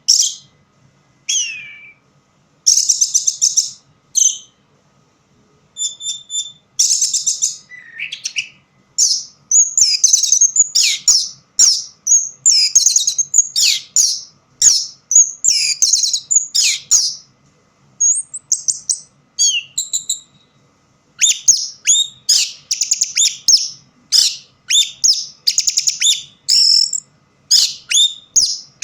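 Orange-headed thrush (anis merah) singing: quick, varied phrases of high notes, slurs and trills. Short phrases with pauses between them for the first several seconds, then nearly continuous song from about nine seconds in.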